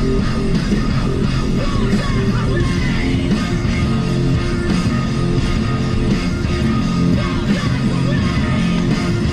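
Heavy rock music with distorted electric guitar.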